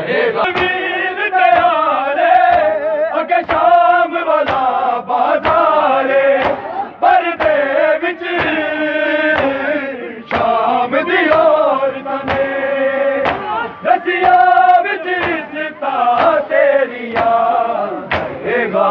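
Men's voices chanting a noha, a Shia mourning lament, loud and in unison, over sharp slaps of hands beating on chests (matam) in a steady beat.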